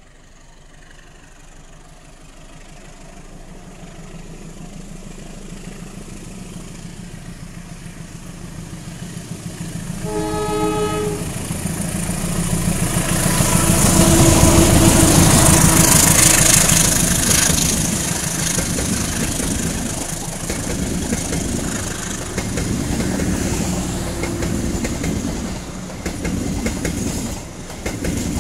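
KAI CC201 diesel-electric locomotive (GE U18C) approaching and passing close, hauling passenger coaches. Its engine grows steadily louder, and a short horn blast of about a second sounds roughly ten seconds in. The locomotive is loudest as it passes about halfway through, then the coaches' wheels clatter over the rail joints.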